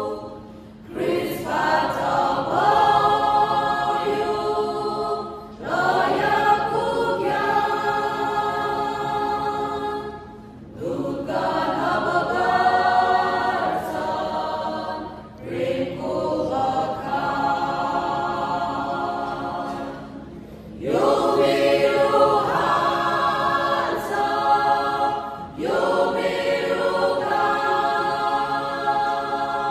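Mixed choir of men's and women's voices singing a gospel song in parts, in phrases of about five seconds with a short breath between each.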